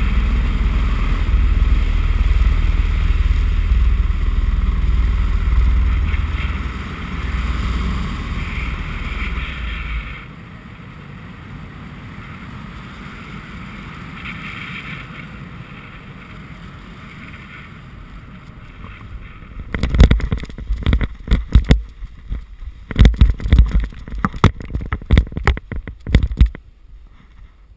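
Paramotor engine running with wind rush, dropping sharply about ten seconds in to a quieter steady wind noise as the power comes off for the landing glide. From about twenty seconds in, loud irregular buffeting and thumps on the microphone at touchdown, stopping shortly before the end.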